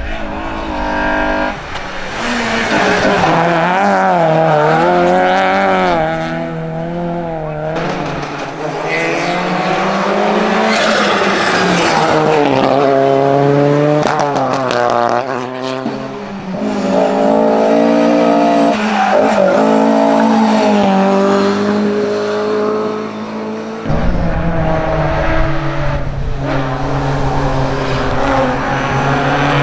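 Racing cars' engines revving hard, the pitch climbing and dropping again and again with gear changes and lifts off the throttle. About 24 seconds in the sound cuts abruptly to a steadier, lower engine note.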